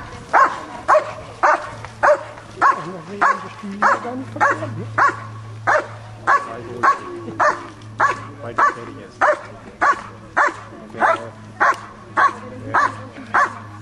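German Shepherd barking steadily and rhythmically, nearly two barks a second, at a helper hidden in a protection-sport blind. This is the bark-and-hold, where the dog guards the cornered helper by barking without biting.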